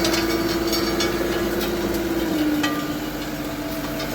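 John Deere 331G skid steer running hydraulics to spin the star rotors of a Gyru-Star screening bucket while it screens topsoil: a steady machine whine that drops slightly in pitch and level about two and a half seconds in, with a few sharp knocks.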